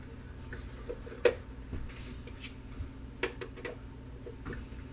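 Kitchen clatter of things being handled: a few scattered sharp clicks and knocks, the loudest about a second in, over a low steady hum.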